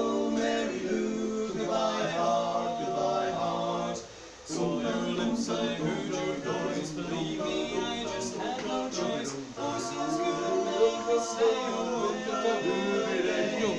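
Male vocal quartet singing unaccompanied in close four-part harmony, barbershop style, a love song. The voices break off briefly about four seconds in, then carry on.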